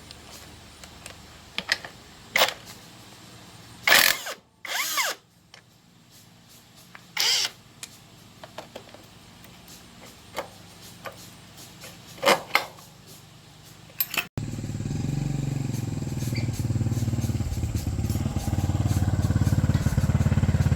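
Scattered metal clanks and taps of tools on a motorbike, then, after an abrupt cut about fourteen seconds in, a small motorbike engine running steadily.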